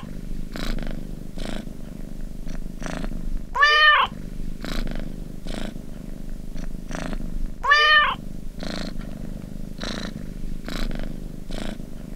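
Domestic cat purring steadily, with a short meow about four seconds in and another about eight seconds in, each rising then falling in pitch. This is the timer's end-of-countdown alarm.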